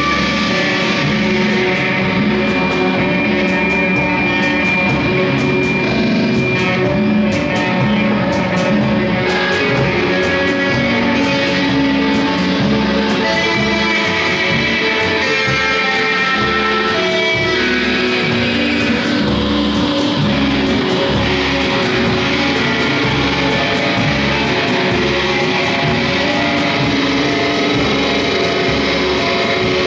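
Live improvised noise music from several electric guitars played through effects pedals and amplifiers: a dense, steady wash of overlapping held pitches that shift slowly, without pauses.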